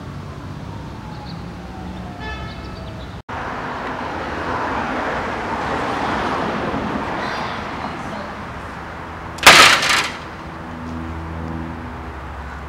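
Outdoor street sound: a vehicle passing, its noise swelling and fading over a few seconds. About two seconds later comes a sudden loud burst lasting about half a second.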